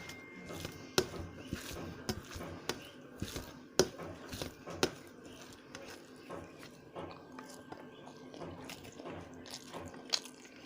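Close-up eating sounds of rice with mulo ghonto (radish curry) eaten by hand: wet chewing and mouth noises, broken by sharp smacking clicks, the loudest about four seconds in.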